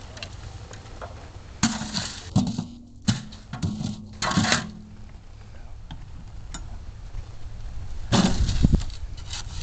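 Hand tools clanking and scraping as the sign posts are set: shovel and digging-tool strikes against soil, metal and the wheelbarrow, in short clusters about a second and a half in and again near the end. A low wind rumble runs underneath.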